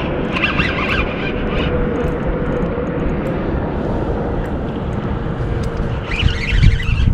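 Wind buffeting an action camera's microphone: a steady, heavy rumble with a faint steady hum underneath. Two brief higher-pitched sounds cut through it, one in the first second or two and one near the end.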